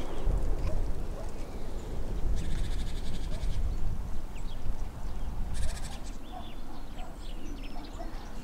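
Outdoor ambience: a steady low rumble with bird sounds, including two bursts of rapid rattling clicks, the first about a second long and the second shorter, and a few faint short chirps later on.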